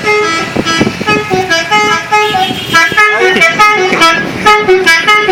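Telolet horn, a multi-tone musical vehicle horn fitted to a Mazda CX-5, playing a fast tune of short notes that step up and down.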